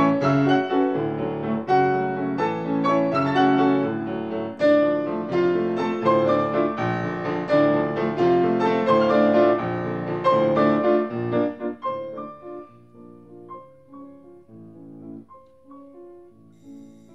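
Grand piano playing classical music: full, dense chords for about eleven seconds, then the playing turns quieter and sparser, with single notes and soft chords.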